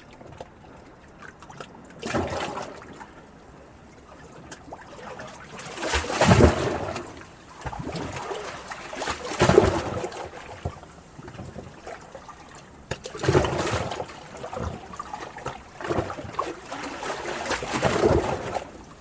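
Sea water washing and lapping in irregular surges, five louder washes over a quieter background of water.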